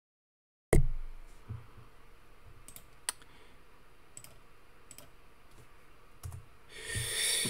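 Sparse clicks of a computer mouse and keyboard at a desk, single clicks a second or so apart. The sound cuts in abruptly under a second in, after dead silence, and a short louder burst of noise comes near the end.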